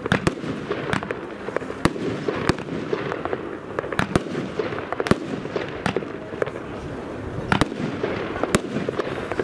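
Evolution 'Double Gold' 25-shot, 30 mm firework battery (cake) firing: about a dozen sharp reports of shells launching and bursting, irregularly spaced roughly a second apart, with steady background noise between them.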